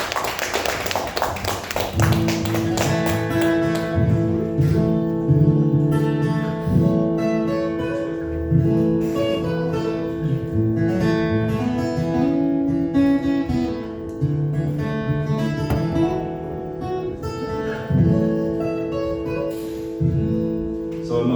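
Solo acoustic guitar: strummed for about the first two seconds, then fingerpicked, with single notes ringing over changing bass notes.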